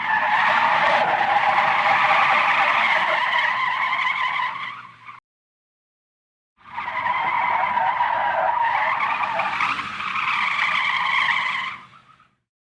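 Two car tyre skids, each a loud squeal about five seconds long that fades out at the end, separated by a second and a half of silence.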